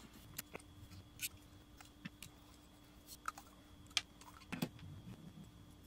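Faint, irregular small clicks and ticks of a metal driver tool against a Visser No. 4 spinning reel's shaft and body as the reel is taken apart, the sharpest about four seconds in, over a faint steady hum.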